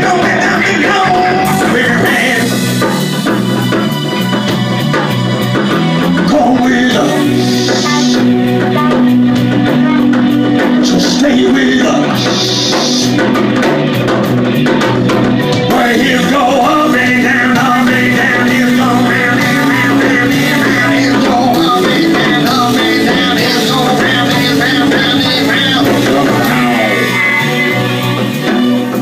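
A live band playing a rock-flavoured cabaret number, with drum kit, a repeating bass line and guitar.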